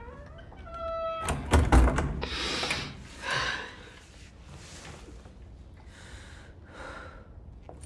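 Heavy wooden cell door creaking on its hinges, then slamming shut with a loud thunk about a second and a half in. Several short, breathy exhalations follow, spaced a second or so apart.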